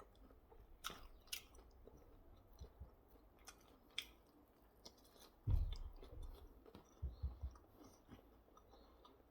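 Close-up chewing of burger and salad, with scattered small crisp clicks from the mouth. A dull low bump about halfway through, the loudest sound, with a few softer bumps shortly after.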